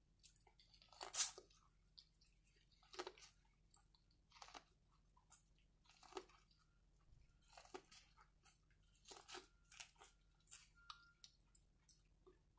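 Corn on the cob being bitten and chewed: an irregular string of short, soft crunches and mouth clicks, the loudest about a second in.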